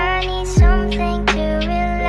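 Background music: sustained chords over a beat of sharp percussion strokes, with a deep falling bass hit about half a second in.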